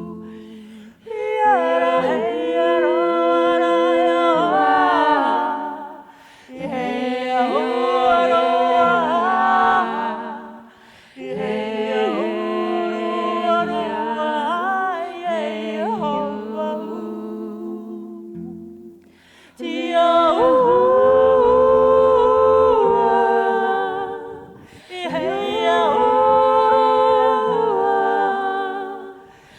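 A small vocal ensemble singing a lullaby a cappella, humming in layered harmony over a held low note. The voices move in phrases of about four to five seconds, with short pauses between them.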